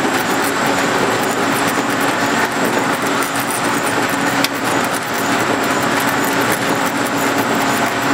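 Metal planer cutting: the single-point tool scraping along the metal workpiece as the table travels under it, a steady grinding noise over a constant machine hum. A single sharp click about four and a half seconds in.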